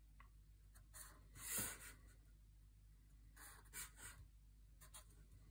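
Faint strokes of a marker pen drawing on the diagram, a few short ones, the loudest about one and a half seconds in.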